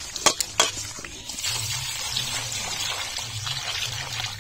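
A few clicks and scrapes of salted fish being rubbed against a steel bowl by hand, then, about a second in, water poured from above splashing steadily into the bowl over the fish.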